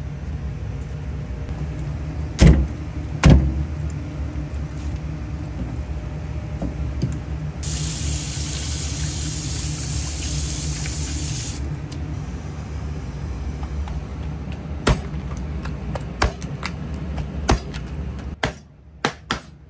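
Kitchen work noises over a steady low machine hum: two heavy knocks a few seconds in, a hiss lasting about four seconds in the middle, then several sharp clicks and taps near the end, when the hum drops away.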